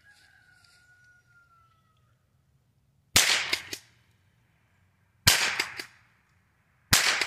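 Three .22 Long Rifle shots from a Henry H003T pump-action rifle, the first about three seconds in, then two more about two seconds and a second and a half apart. Each is a sharp crack with a short echo trailing off.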